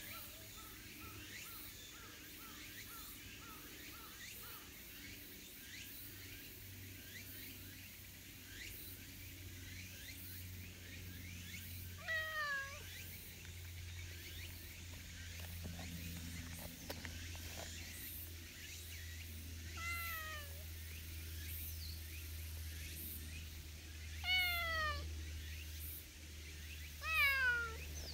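A grey mackerel tabby cat meowing four times. Each meow is short and falls in pitch at the end. The first comes about halfway through, and three more follow in the last third.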